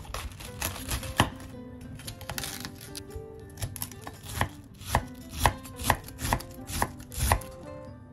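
Kitchen knife cutting cabbage on a wooden cutting board: crisp cuts through the leaves and knocks of the blade on the board, irregular at first, then coming steadily about twice a second in the second half.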